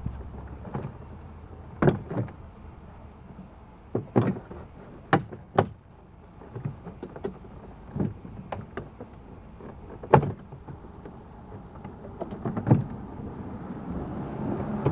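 Plastic door trim panel on a Chevy Blazer's door being pried and pulled loose, giving about a dozen irregular sharp clicks and knocks.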